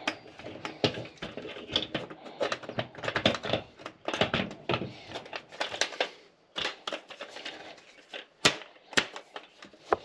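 White plastic corner pieces and steel bars of a computer tower stand clicking, clattering and scraping as they are fitted together by hand, with a few sharper clicks in the second half.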